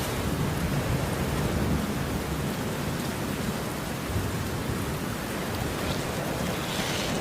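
Steady rain falling, with a low thunder rumble that eases off after the first couple of seconds.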